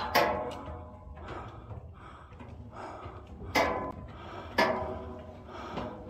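Footsteps climbing a steep stair, each step a sharp clang with a short ring: one at the start, then two more about a second apart past the middle.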